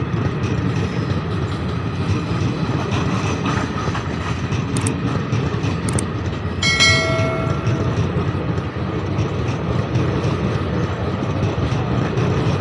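Indian Railways passenger coaches rolling past at speed close by, a steady rumble of wheels on the rails. Two sharp clicks come about five and six seconds in, then a short chime-like tone of under a second.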